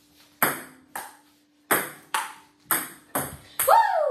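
Table tennis rally: a ping pong ball clicking off paddles and the table, about seven hits roughly half a second apart. Near the end a voice calls out briefly, falling in pitch.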